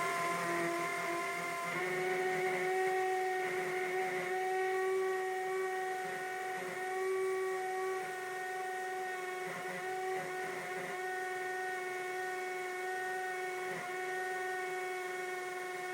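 Two cordless hammer drills, a Ryobi P213 and a Craftsman CMCD711, running together and boring 3/16-inch masonry bits into a concrete paver. The motors make a steady whine that shifts slightly in pitch about two seconds in.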